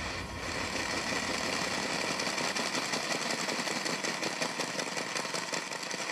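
High-pressure water jet blasting into a reinforced concrete wall: a steady, dense hiss of spray with a fast, even rattle running through it.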